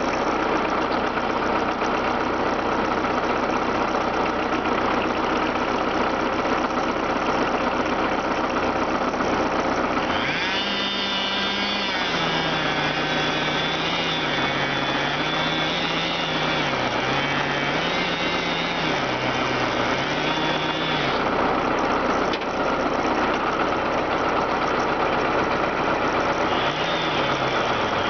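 An engine running steadily throughout. From about ten seconds in, a chainsaw revs high and its pitch dips again and again as it cuts, for about ten seconds, then drops back. It revs up again near the end.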